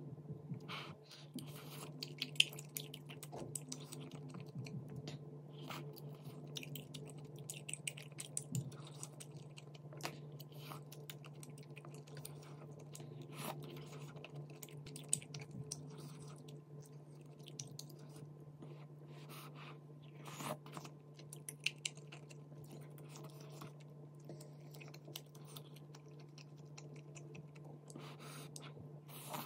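Close-miked eating of chewy rice-cake tteokbokki in a creamy sauce: soft chewing and wet mouth sounds, with small clicks of wooden chopsticks and a wooden spoon against the pan. A steady low hum runs underneath.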